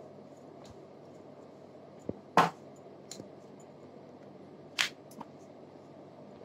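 Chapati dough being rolled out with a rolling pin on a stone rolling board. Half a dozen sharp clacks from the pin and board knocking together, the loudest about two and a half seconds in, over a faint steady hum.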